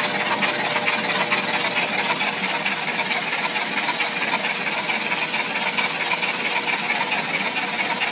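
Freshly rebuilt 427 big-block Chevrolet V8 being turned over at about 300 RPM by an electric run-in machine, not firing. It runs steadily and evenly, with fast fine ticking and a constant hum underneath.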